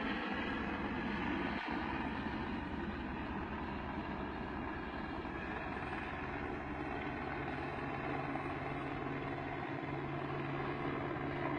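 Steady engine noise from vehicles at the roadside, with a low hum that grows stronger near the end.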